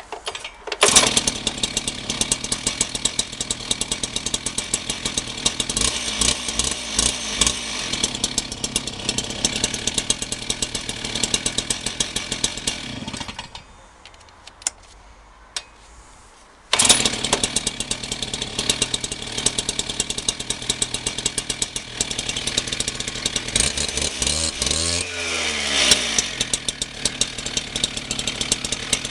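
Stihl TS 410 cut-off saw's single-cylinder two-stroke engine starting warm and running at a fast, crackling idle. About halfway through it stops, then starts again abruptly a few seconds later, with a brief rev and fall in pitch near the end.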